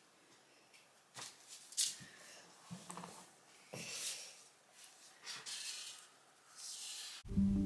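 Short, irregular scratchy strokes of drawing on paper, a few seconds apart. Music with piano starts suddenly near the end and is the loudest sound.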